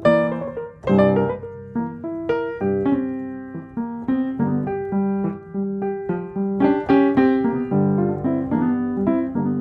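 Background piano music: a gentle melody of struck notes over low chords.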